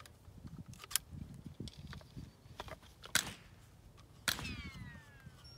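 Clicks and knocks of a rifle and its rimfire suppressor being handled as the suppressor is unscrewed from the barrel, with a sharper knock just after three seconds. A falling whistle-like tone starts a little after four seconds.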